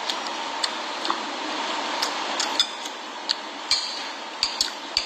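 Metal spoon clinking and scraping against a ceramic plate while eating, about ten sharp, irregular taps over a steady background hiss.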